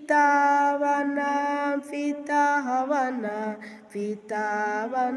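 A woman singing a Kinyarwanda hymn solo and unaccompanied, holding long notes with a few slides in pitch and short breaks for breath.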